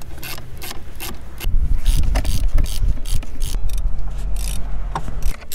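Hand ratchet with a spline bit clicking in quick strokes as the fuel rail bolts are undone. A heavy low rumble runs through the middle.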